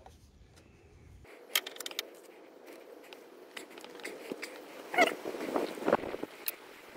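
Ratchet and socket working a 10 mm bolt out of a car engine's alternator decoupler bracket: scattered metal clicks and clinks, with a short squeaky rasp about five seconds in.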